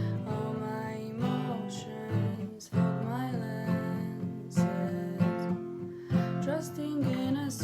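Acoustic guitar music, strummed and plucked, with a steady rhythm.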